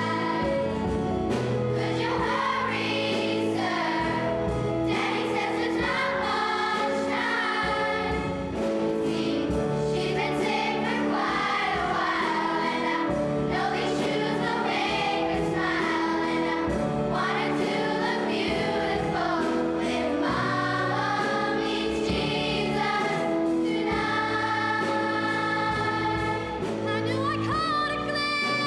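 A choir singing a holiday song over held accompaniment notes.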